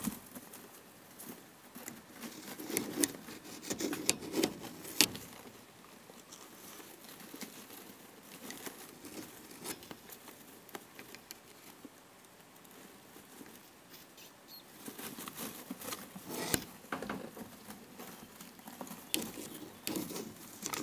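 Shredded-paper nest bedding crackling and rustling as the rats move in it, a run of small crisp clicks that comes in spells, busiest in the first few seconds and again in the last third.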